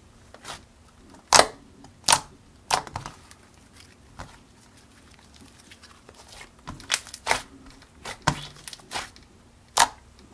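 A thick, creamy clay-based slime being squished and pressed by hand, giving sharp popping clicks at irregular intervals, roughly one a second.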